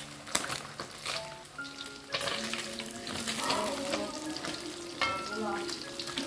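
Whole tilapia frying in hot oil in a wok, a steady sizzle, with a metal spatula scraping and knocking against the wok as the fish are turned; the sharpest knocks come about half a second in and again about five seconds in.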